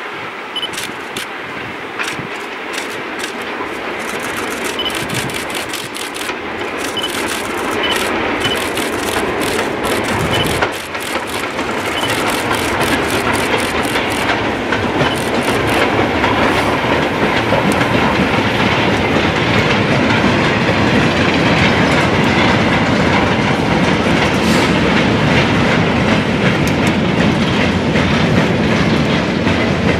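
Steam locomotive hauling a long goods train of mineral wagons past: sharp beats and clicks grow louder as the engine approaches, then the wagons roll by in a steady, loud clatter of wheels over rail joints.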